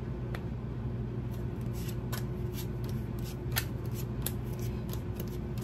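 Tarot cards being drawn from the deck and laid down on a glass tabletop: a series of light, sharp card clicks and slaps, roughly one or two a second, over a steady low hum.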